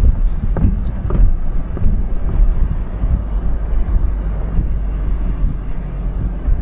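Car driving along a road: a steady low rumble of road and wind noise, with a few short knocks in the first two seconds.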